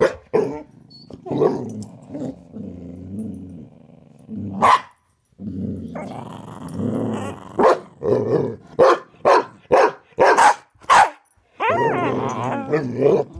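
A dog play-growling in a game of hide and seek, with sharp barks. A low growl runs for the first few seconds and ends in a single bark. After a short gap the dog growls again, then gives a quick run of about eight short barks, and a long growl near the end.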